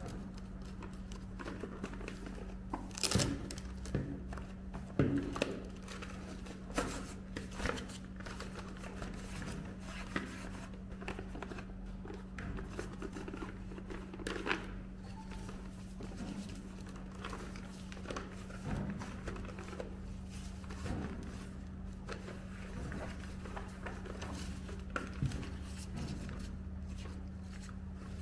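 Handling noise from fitting a mesh fabric neck shade onto a plastic hard hat: fabric rustling, with the hat shell and its suspension clicking and knocking. The sharpest clicks come about three and five seconds in, over a steady low hum.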